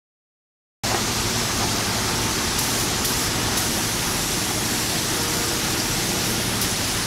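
Silence, then about a second in a steady, loud rushing noise of factory workshop ambience cuts in abruptly, with a faint hum under it.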